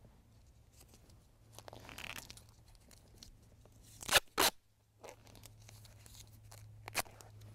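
Duct tape being pulled off the roll and torn by hand, with two sharp rips about four seconds in and another near the end, as it is wrapped over the sharp cut metal edges of a dome strut joint.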